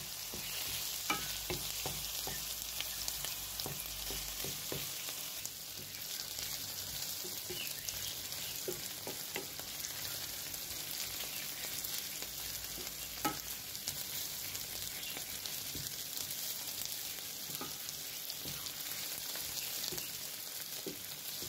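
Chopped onion sizzling steadily in olive oil in a metal pan, being sautéed until soft. A wooden spoon stirring it gives scattered short knocks and scrapes against the pan, one louder knock about 13 seconds in.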